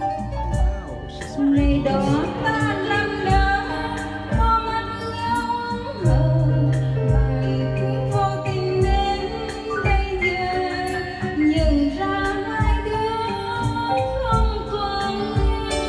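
Two women taking turns singing into hand-held microphones over a backing track with a steady beat.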